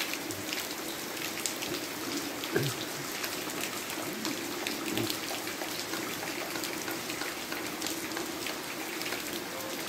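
Steady rain falling, a dense patter of drops striking roofs and wet ground.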